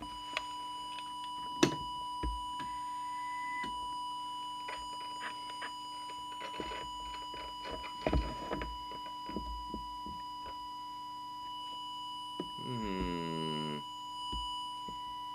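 Steady audio test tone from a signal oscillator, fed into the CB radio to set its transmit deviation. It is overlaid by scattered clicks, the sharpest about a second and a half in, and a short warbling burst about 13 seconds in.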